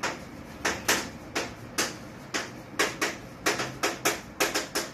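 Chalk writing on a blackboard: a quick, irregular run of sharp taps and short scratches as letters are stroked out.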